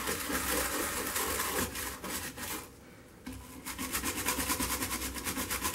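Stiff bristle brush scrubbed back and forth over a leaded stained-glass panel, polishing the freshly cemented piece, in quick repeated strokes with a short pause about halfway through.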